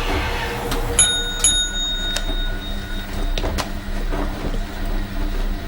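A small bell struck twice in quick succession about a second in, ringing for about two seconds, followed by a couple of short clicks, over a steady low hum.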